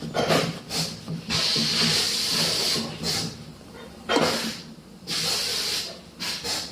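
Repeated bursts of hissing, each from a fraction of a second to about a second and a half long, over a faint low steady hum.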